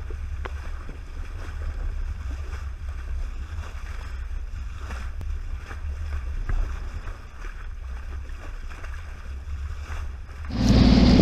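Low rumble of water and wind against a small camera as a sailing yacht's bow cuts through choppy water. Near the end a much louder, steady droning hum starts.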